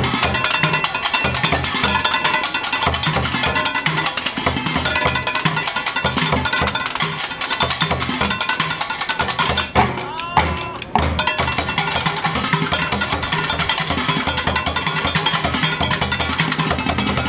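Loud rock music with a steady drum beat and percussion, briefly thinning out about ten seconds in.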